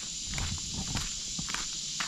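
Footsteps walking over dirt and gravel at a steady pace.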